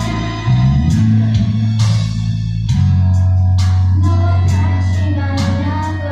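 Korean pop ballad playing: a sung melody over sustained bass notes, guitar and regular cymbal hits.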